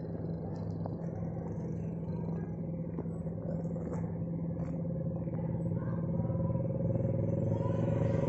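Bass-heavy music from a large outdoor PA system with subwoofers, heard as a steady low rumble that swells slightly toward the end.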